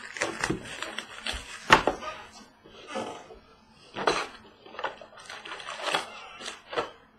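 Trading cards and their packaging being handled at a table: a string of short clicks, taps and rustles, the sharpest knock a little under two seconds in.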